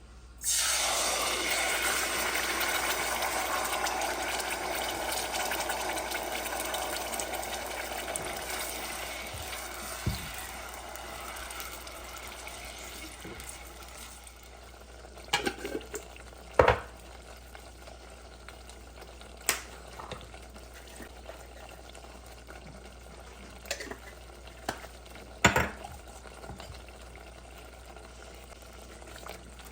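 Sizzling in a hot pan that starts suddenly and dies down gradually over about ten seconds, followed by a few sharp clicks and knocks of kitchen utensils.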